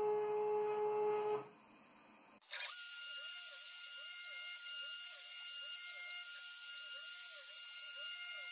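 CNC router milling a padauk end-grain ring blank. A steady machine hum drops away after about a second and a half. About two and a half seconds in, a high steady whine starts, with a tone under it that rises and falls about twice a second as the router cuts around the ring.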